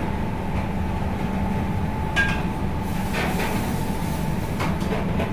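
Steady rumble and hum of commercial kitchen equipment, with a thin steady whine over it, and a few short clinks and clatters of utensils about two, three and four and a half seconds in.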